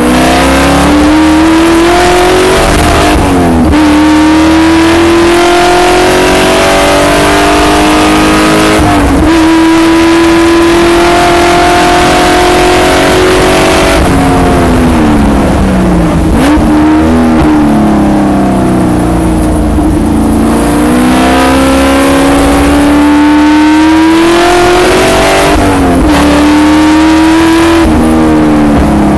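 Spec Corvette race car's V8 engine at full throttle, heard from the cockpit. It climbs in pitch through the gears with a short drop at each upshift, holds a high steady note, then falls in a long slide about halfway as the car brakes and downshifts, and climbs again before dropping near the end.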